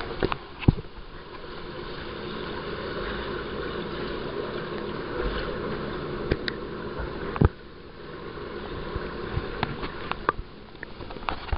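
Muffled rushing and gurgling of pool water heard by a submerged camera, with a couple of sharp knocks, about a second in and about two-thirds of the way through.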